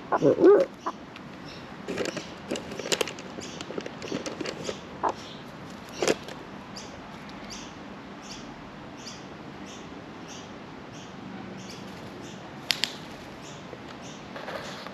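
Australian magpie being hand-fed: a few low gliding vocal sounds in the first second, then scattered sharp clicks and taps as it picks up and snaps at the food. Faint high ticks repeat about twice a second in the background.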